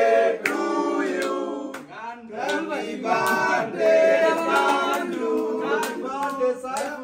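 A group of young men singing a birthday song together, unaccompanied, with a brief break about two seconds in.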